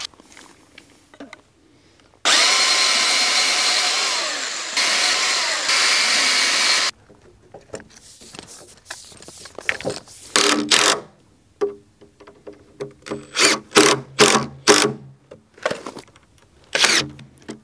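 Cordless drill driving screws through a metal two-hole strap into a wooden frame, in a run of short bursts in the second half. Before that comes a loud steady noise of about four and a half seconds that starts and stops abruptly.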